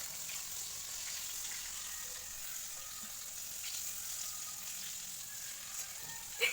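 Food sizzling steadily in hot oil in a pan, with a few faint ticks.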